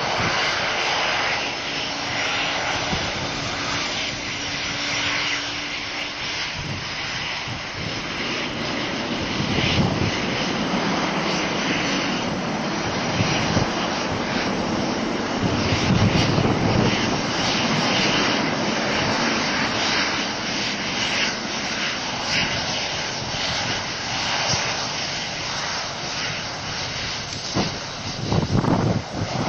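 Boeing 737-300 airliner's CFM56-3 turbofan engines running at taxi power as it taxis past: a steady jet whine over a rumble, swelling near the end as the aircraft comes close.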